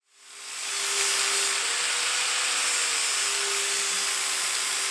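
Angle grinder with an abrasive disc grinding the steel of a BMW E30 front subframe: a steady, hissing grind over a constant motor whine. It fades in over the first second.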